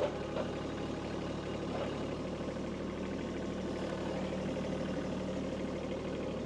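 Kubota B2301 compact tractor's three-cylinder diesel engine running steadily, with a couple of light knocks just at the start.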